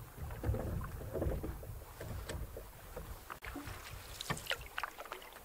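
Water splashing and dripping around a canoe on calm water, with small sharp splashes clustering near the end, over a low wind rumble on the microphone.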